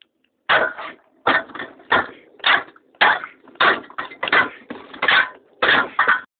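A spade slapped down hard again and again, a dozen or so blows about two a second, beating a mouse to death.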